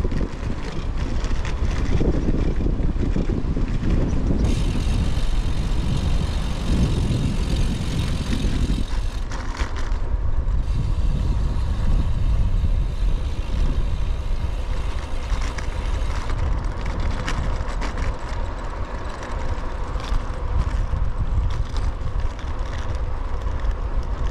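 Riding sound of a loaded touring bicycle: wind on the microphone over a heavy low rumble of tyres on the road, with many small clicks and rattles. A higher hiss joins about four seconds in and drops away around sixteen seconds.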